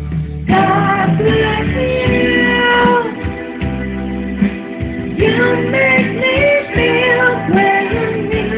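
Live music: a voice singing long held notes with vibrato, sliding between pitches, over guitar accompaniment.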